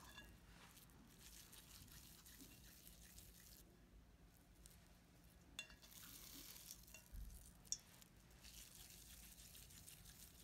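Faint wet squishing of a raw ground beef and rice mixture being pinched off and rolled into meatballs by hand, with a couple of small clicks.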